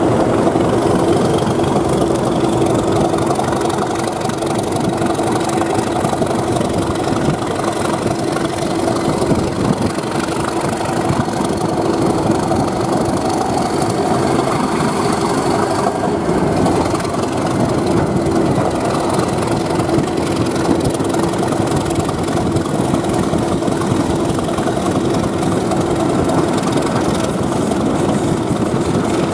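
English Electric Class 37 diesel locomotive's V12 engine running steadily, with a strong, even drone, heard from an open coach window just behind the locomotive and mixed with the train's running noise on the rails.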